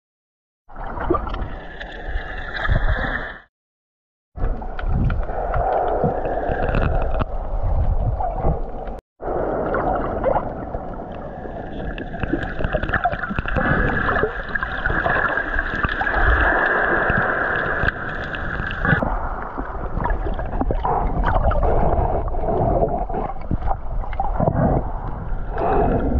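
Muffled underwater water noise picked up by a camera in its waterproof housing while snorkeling: a steady rushing and gurgling of water. Short dropouts to silence come near the start, about four seconds in and about nine seconds in.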